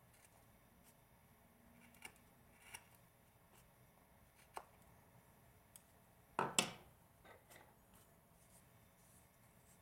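Small hand carving tool cutting wood in short, faint strokes, heard as a few scattered snicks, with one louder double knock about six and a half seconds in.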